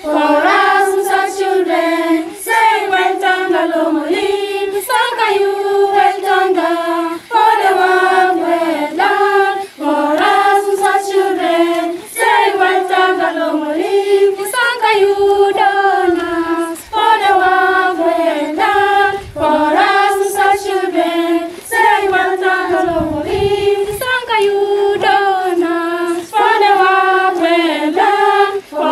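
A group of schoolgirls singing together in unison without accompaniment: one melody in short phrases with brief breaths between them.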